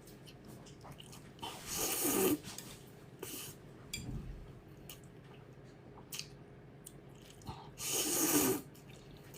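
A person eating: small, wet chewing clicks, with two loud slurps about a second long, around two seconds in and near the end.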